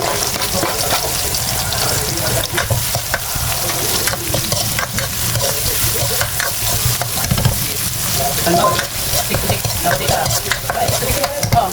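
Food sizzling in a frying pan while it is stirred, with the utensil clicking and scraping against the pan again and again over a steady hiss.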